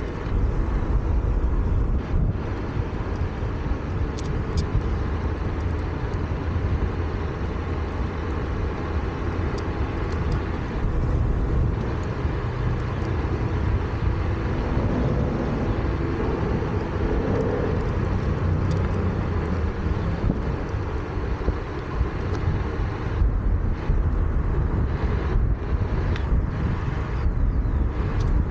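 Steady wind rush over the microphone mixed with the tyre rolling on asphalt as a Onewheel Pint electric board cruises along a paved path: a constant low rumble with a hiss over it.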